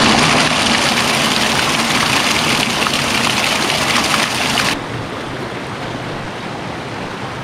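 Rushing water of a stream, a steady loud hiss, that drops suddenly to a quieter, duller rush a little over halfway through.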